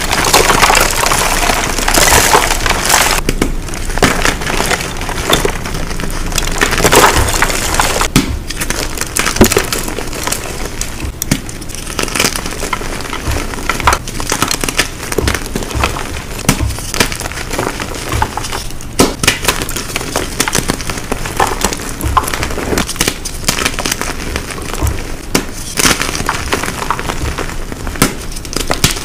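Blocks of gym chalk being crushed and crumbling, a dense run of crisp crunches and small cracks, loudest in the first few seconds.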